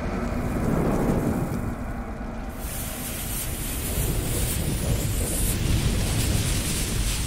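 Sound effects for an animated logo intro: a steady deep rumble like thunder, with a burning fuse hissing over it for about three seconds in the middle.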